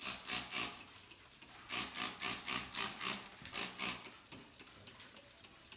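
Trigger spray bottle of Greased Lightning degreaser being squeezed repeatedly, giving quick hissing squirts onto a wooden cabinet door. A few squirts come at the start, then a longer run of about a dozen from about two seconds in. It goes fainter after about four seconds.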